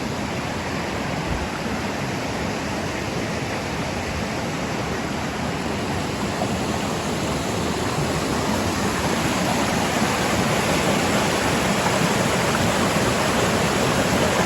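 Ankasa River's water rushing steadily, a continuous even hiss of flowing water that grows somewhat louder in the second half.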